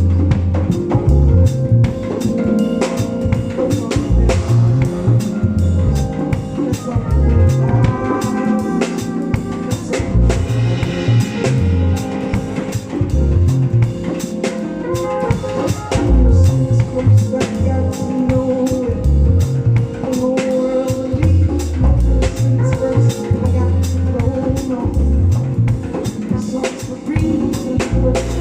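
Live band playing an instrumental passage: a drum kit keeps a steady, busy beat over a moving bass line and sustained chords.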